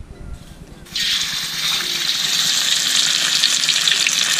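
Fish frying in hot oil in a pan: a loud sizzle starts suddenly about a second in and carries on steadily.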